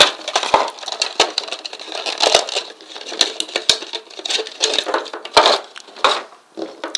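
Product packaging being handled and opened: many irregular sharp crinkles and clicks of plastic and cardboard.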